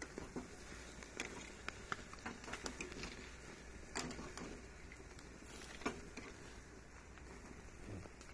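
Pork sizzling over a charcoal grill: a faint steady hiss with scattered sharp pops and clicks, from fat spitting and metal tongs touching the wire grate.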